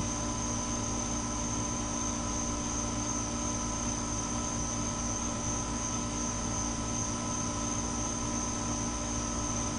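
Steady hum of a neighbouring house's air conditioner running: a low rumble with several fixed tones and a continuous high-pitched whine above it.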